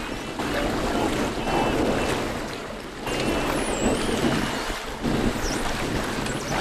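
Wind buffeting the microphone over choppy river water, in gusts that swell and ease every second or two, with a few faint high whistles.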